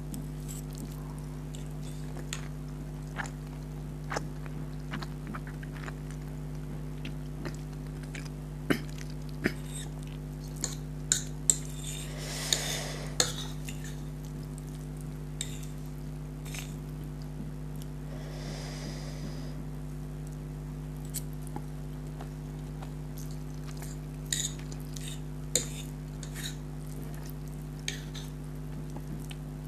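Cutlery clinking and scraping on a plate while instant noodles are eaten, with scattered sharp clicks and two short rushing sounds of slurping or breath about twelve and eighteen seconds in. A steady low hum runs underneath.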